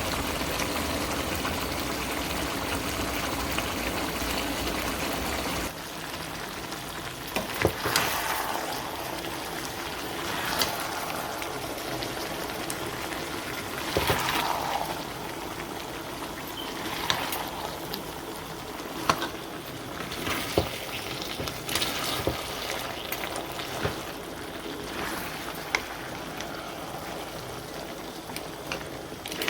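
Chicken curry sizzling and bubbling in a pot as a steady hiss. A low hum under it stops about six seconds in, and after that there is a sharp knock every few seconds.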